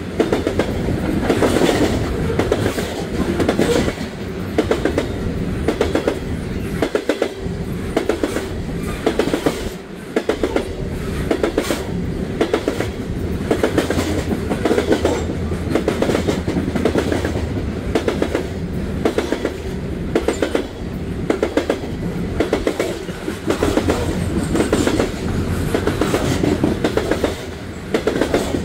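Coal train's hopper cars rolling past, their wheels clicking over the rail joints in a repeating clickety-clack over a steady rumble.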